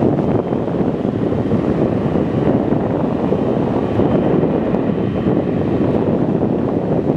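Wind rumbling steadily on the microphone, with the distant engine noise of a twin-engine jet airliner on final approach beneath it.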